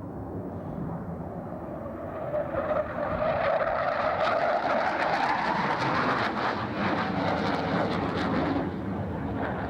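Tornado GR4 jet's twin RB199 turbofan engines building up loud, with a whine rising in pitch, loudest in the middle and easing off near the end.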